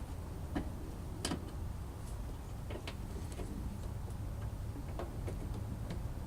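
Scattered light clicks and taps, irregular rather than rhythmic, of a screwdriver working a stubborn screw inside a car's fender flare, over a steady low rumble.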